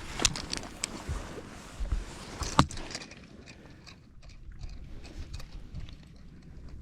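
Scattered light clicks, knocks and low thumps of handling on a fishing boat, with one sharp click about two and a half seconds in, then quieter faint ticking.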